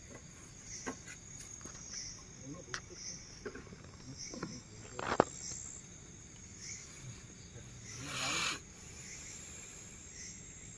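Insects chirring in a steady high tone, with scattered small clicks of handling; a sharp click about five seconds in and a short rustle around eight seconds in.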